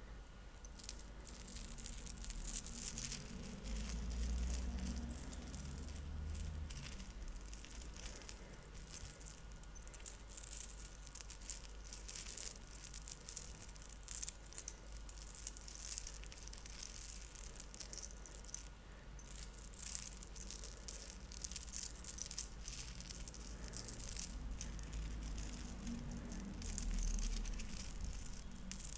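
A strand of small beads is lowered and trickled into a cupped hand close to the microphone, giving a continuous, irregular clicking rattle as the beads pile against each other. Low handling bumps near the microphone come twice, early and near the end.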